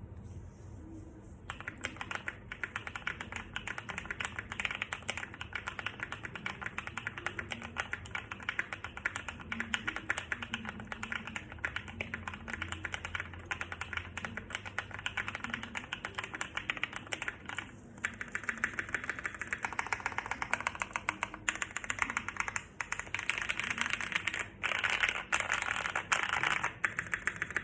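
Fast, steady typing on a mechanical keyboard with lubed and filmed Holy Panda tactile switches, in an acrylic case with tape mod and PE foam, resting on the floor. The keystrokes start about a second and a half in, with a short break about two-thirds of the way through, and the clicking is a little louder after the break.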